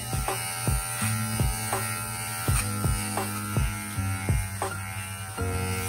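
Kemei KM-2002 electric hair clipper running with a steady buzz while cutting hair, with a string of short ticks over it.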